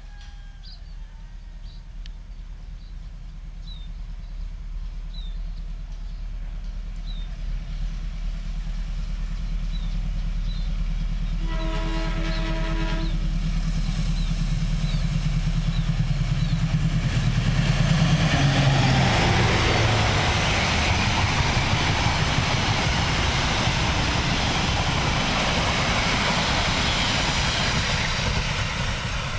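General Electric diesel-electric locomotive approaching and passing with its train: the engine rumble grows steadily louder, one horn blast of about a second and a half sounds near the middle as the Semboyan 35 warning signal, then the engine note drops as it goes by and the rattle of carriage wheels on the rails takes over.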